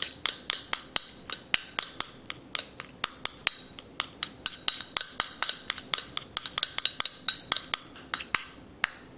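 Metal spoon clinking against a porcelain bowl while mashing roasted garlic cloves, a steady run of sharp clicks, about three or four a second.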